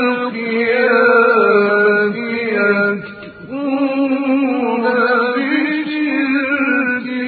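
A man reciting the Quran in the melodic, drawn-out mujawwad style, holding long ornamented notes. He breaks briefly for breath about three seconds in.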